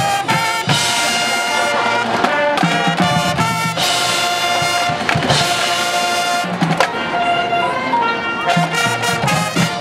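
High school marching band playing: the brass section holds loud, long chords, punctuated by drum hits from the percussion.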